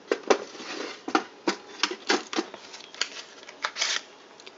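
A run of about a dozen short, irregular clicks and ticks with faint rustling between them.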